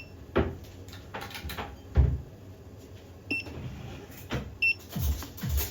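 Three short, high electronic beeps from a soldering station's control panel, spaced irregularly, amid light clicks and handling knocks, the loudest a dull knock about two seconds in.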